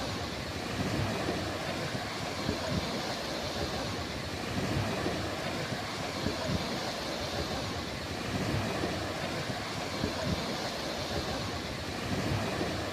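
Waves washing onto a beach, a continuous surf noise that swells and eases every few seconds, with irregular low rumbles of wind on the microphone.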